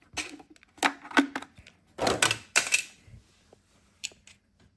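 Irregular clusters of clicks and rattles from small hard parts being handled, about four bursts with quiet gaps between.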